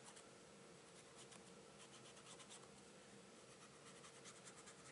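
Near silence, with faint light scratching as a glitter brush pen's tip is drawn in short strokes along the edge of card stock, in clusters about a second in, near the middle and near the end.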